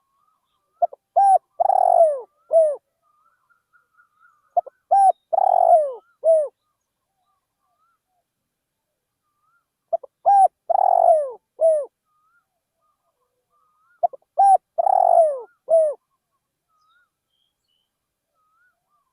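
Spotted dove cooing: four phrases a few seconds apart, each a run of several falling coos with one longer middle note. Faint thin calls of another bird can be heard between the phrases.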